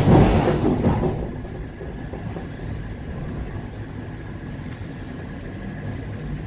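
Electric train's doors shutting with a loud burst of hiss and clatter in the first second, then the ET2M electric multiple unit's low, steady running rumble as it starts pulling away from the platform.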